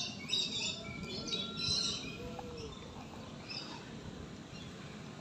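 Birds in an aviary giving several harsh, high calls close together in the first two seconds, then only a few fainter calls.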